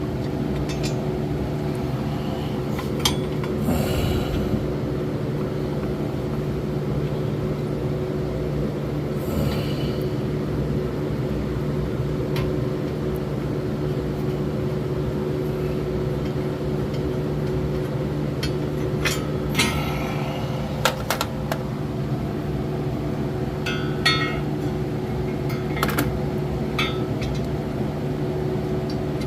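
Scattered metallic clinks and clicks of hand tools and bolts against metal parts while an engine bracket is fitted, over a steady low hum.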